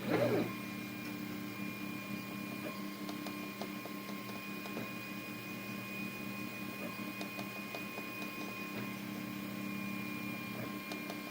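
Anet A8 3D printer running mid-print: a steady hum and whine from its stepper motors and fans, with faint scattered ticks.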